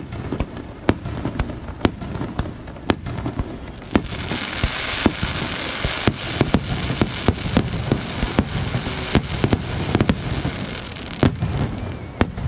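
Fireworks display: a run of sharp bangs from bursting shells, irregular and often several a second, with a denser stretch of crackling from about four seconds in.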